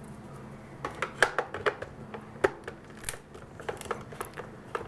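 Screwdriver working a small screw out of a portable radio's plastic case: a run of irregular sharp clicks and scrapes, starting about a second in.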